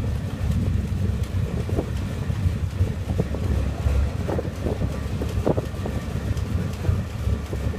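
Wind buffeting the microphone as a gusty low rumble, with a few faint short sounds above it in the middle.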